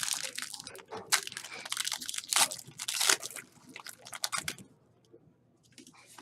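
Foil trading-card pack wrappers being torn open and crinkled: a run of crisp rips and crackles that stops about four and a half seconds in.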